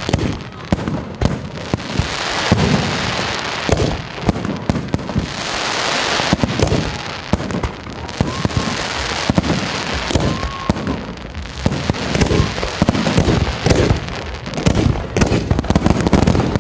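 Festive fireworks display: aerial shells bursting in rapid, irregular bangs, with stretches of hissing and crackling between them.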